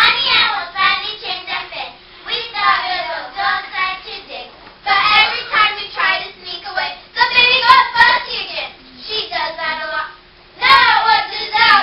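A group of children's voices reciting verse in unison, in rhythmic chanted phrases of a second or two with short pauses between them.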